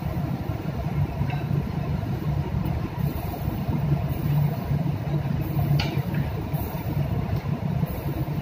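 Steady low drone of a ship's machinery. A faint clink comes about a second in and another a little past halfway.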